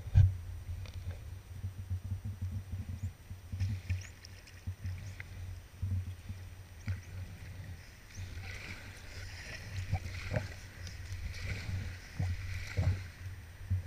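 Sea kayak being paddled through shallow water, with small paddle splashes and knocks over a steady low wind rumble on the microphone. From about two-thirds of the way in, a hissing scrape as the hull slides up onto a seaweed-covered shore.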